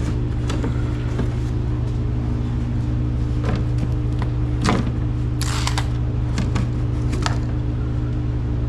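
Steady low electrical hum of a running Frigidaire refrigerator, with scattered knocks and a short hiss about halfway through as it is handled.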